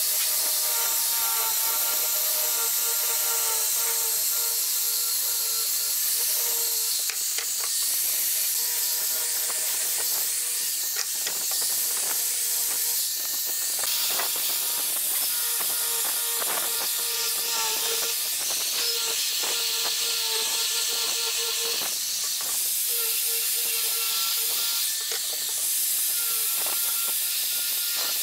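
Electric angle grinder fitted with a sanding drum, running and sanding the curved edges of a wooden table leg: a steady hiss of abrasive on wood over the grinder's motor whine, which wavers and drops out here and there as it is pressed into the wood.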